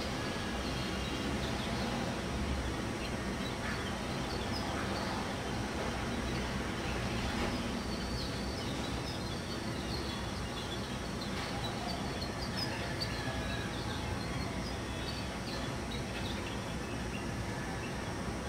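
Steady background noise with small birds chirping here and there above it.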